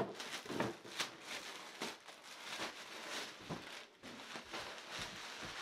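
Clear plastic packaging bag crinkling and rustling in irregular crackles as a folded inflatable ghost is handled and pulled out of it.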